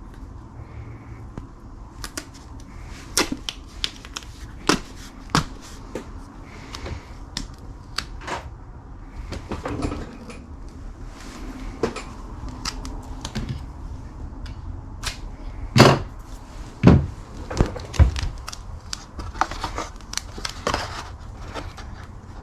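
Handling noise from a thin Lexan RC car body being lined with Gorilla Tape: irregular clicks, taps and crinkles of the plastic shell and tape, with three louder thumps about two-thirds of the way through.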